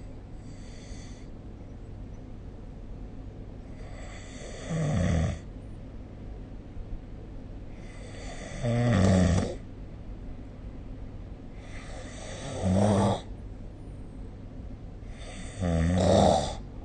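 A sleeping person snoring: four loud snores about four seconds apart, each starting with a breathy hiss, over a low steady hum.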